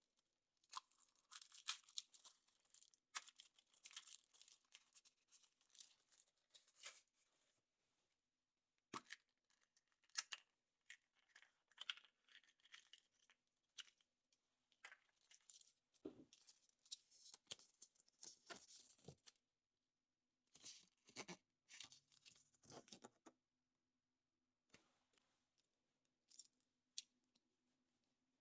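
Foil wrapper of a chocolate surprise egg being torn and crinkled off by hand: irregular bursts of crackling with a few sharp clicks and snaps.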